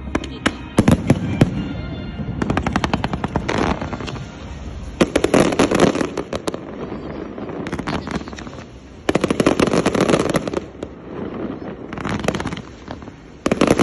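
Fireworks going off in volleys of rapid crackling pops, dense strings of sharp reports lasting a second or two each, coming again and again with short lulls between.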